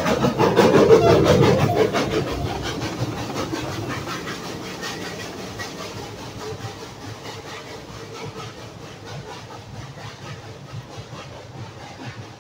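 1937 Porter 0-4-0T narrow gauge steam locomotive passing close with a train and pulling away, its exhaust chuffing in a steady rhythm with steam hiss. Loudest about a second in, then fading as it moves off.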